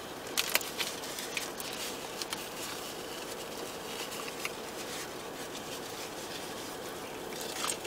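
Quiet eating sounds: scattered small clicks and crinkles of an aluminium-foil wrapper being handled and of chewing and finger-licking, over a steady hiss.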